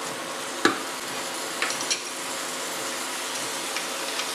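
Onion paste sizzling as it fries in oil and ghee in a kadai, stirred with a wooden spatula. A few knocks of utensils against the pan cut through the sizzle, the sharpest about two-thirds of a second in.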